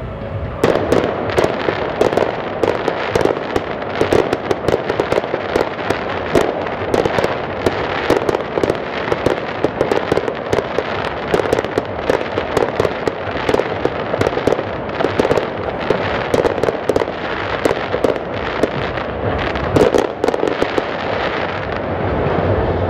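Fireworks display going off in rapid succession: a dense, continuous run of bangs and crackles that starts about half a second in and thins out near the end.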